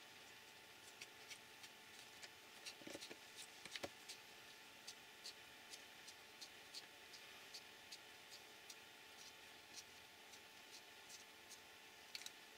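Faint light clicks and ticks of small metal and plastic shock absorber parts handled with pliers. A louder cluster of clicks comes around three to four seconds in, then light ticks at a fairly even rate of about two to three a second.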